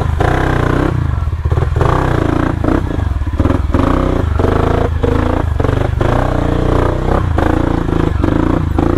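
Yamaha WR155R motorcycle's single-cylinder engine running loud and steady while riding a rough off-road trail, with frequent short knocks and rattles.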